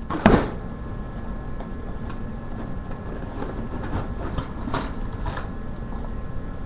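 A model kit box being opened: one sharp knock just after the start, then scattered light clicks and rustles of the box and its contents being handled, over a steady low hum.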